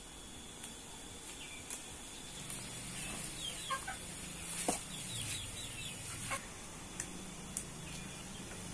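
A chicken clucking, a cluster of short falling calls through the middle. A few sharp snaps come from cassava leaf stems being picked by hand.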